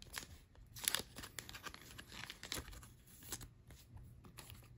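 Pokémon trading cards being handled and sorted by hand: soft, scattered papery flicks, slides and rustles, with a sharper one about a second in.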